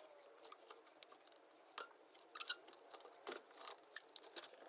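Faint, irregular clicks, taps and small clatter from objects being handled on a workbench, the sharpest tick about two and a half seconds in.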